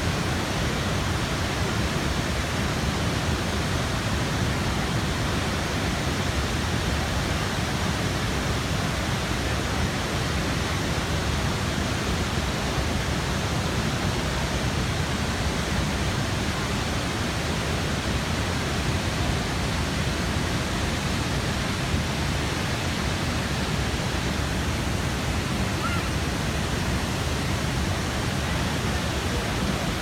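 Athirappilly Falls in full, heavy flow: a steady, even rush of falling and churning water with no breaks.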